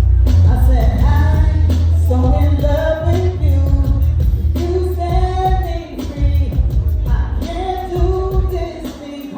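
Live R&B band music with heavy bass under a singer's held, bending vocal notes.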